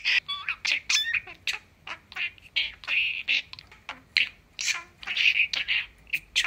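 Pet budgerigar chattering: a quick run of scratchy chirps, clicks and warbles with mimicked Japanese words mixed in, such as "warugaki" (brat) and "unten" (driving).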